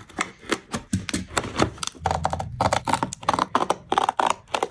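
A parcel's packaging being torn open by hand: rapid, irregular crackling and clicking that gets busier about halfway through.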